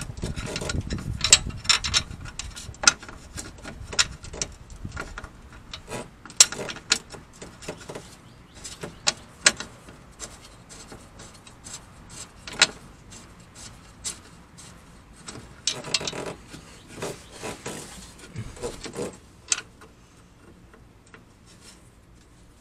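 Irregular sharp clicks and clinks of metal bolts and bracket hardware being handled and fitted by hand under a car's front end. The clicking thins out about twenty seconds in.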